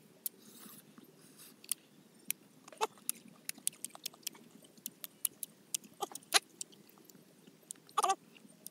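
Close-up chewing of crunchy raw cucumber: many short, sharp crunches and mouth clicks, with a few brief vocal sounds at about three, six and eight seconds in.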